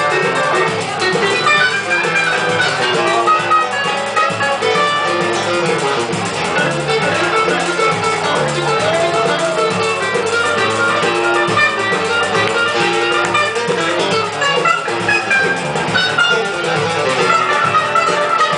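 Choro ensemble playing continuously: seven-string guitar and cavaquinho plucking the melody and harmony over a pandeiro, rebolo and surdo rhythm.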